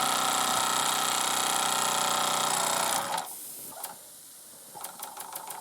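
Small Meccano steam engine running fast with a steady mechanical rattle and hiss of steam. The hiss is steam the owner thinks is escaping from the safety valve. It cuts out sharply about three seconds in. Near the end it begins to chuff again, its beats coming quicker and quicker.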